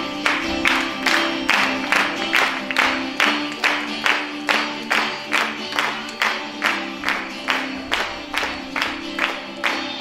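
Music with a steady, sharp percussive beat, about two and a half beats a second, over held low notes.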